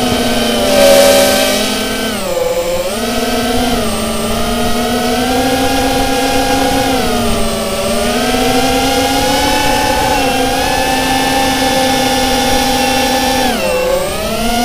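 Brushless motors and propellers of a QAV210 racing quadcopter, heard from its on-board camera: a steady multi-tone whine whose pitch wavers with the throttle and dips sharply and recovers twice, about two seconds in and near the end. A short burst of rushing noise comes about a second in.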